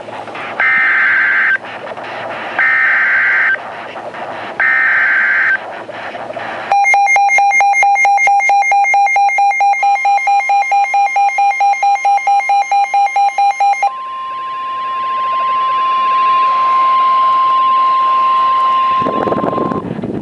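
Start of an Emergency Alert System broadcast on NOAA Weather Radio: three one-second bursts of screeching SAME digital header data, then about seven seconds of fast pulsing beeps at roughly four a second, then the steady single-pitch 1050 Hz weather radio warning tone for about six seconds. The sequence signals an incoming severe thunderstorm warning.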